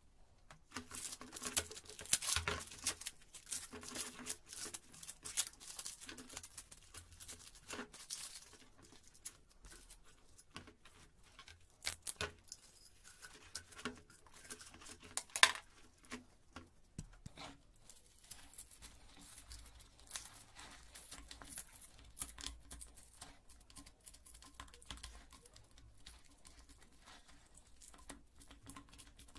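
Crinkling paper, then the scratchy cutting and scraping of a utility knife through cured foam at the neck of a plastic can, with scattered clicks and taps; one sharp click about halfway through.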